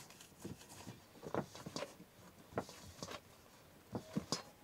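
Hands kneading bread dough in a stainless steel bowl: soft, irregular pats, squishes and light knocks, a few a second.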